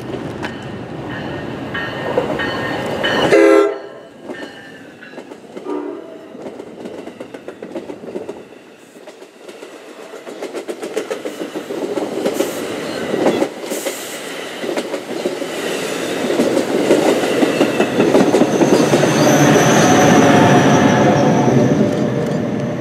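NJ Transit passenger train sounding its horn, a chord that cuts off about three and a half seconds in. The train then passes with a steady rumble and wheels clicking over rail joints, growing louder toward the end, when a high thin squeal comes in.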